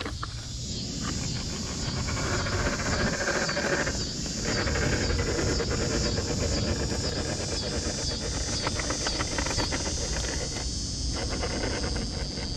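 Scale RC rock crawler's electric motor and geared drivetrain whining as it climbs a tree trunk under throttle, easing off briefly about four seconds in and again near eleven seconds, over a steady high hiss.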